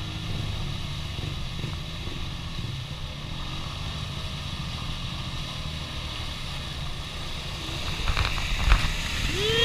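ATV engines running steadily at low revs while a four-wheeler churns through a flooded mud hole, getting louder as it comes close about eight seconds in, with mud and water splashing from the tyres.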